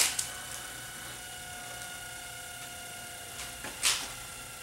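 Sony DTC-75ES DAT deck's tape transport winding the tape at speed, its motors giving a steady high whine made of several pitches. A sharp click comes at the start and a short rustling burst about four seconds in.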